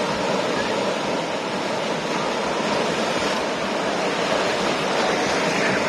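Ocean surf breaking and washing ashore: a steady, continuous rush of waves.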